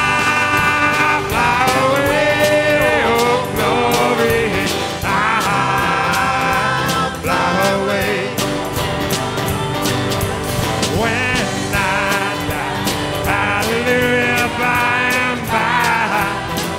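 Live band playing an instrumental passage: an electric guitar lead with bending notes over bass guitar and a steady drum beat.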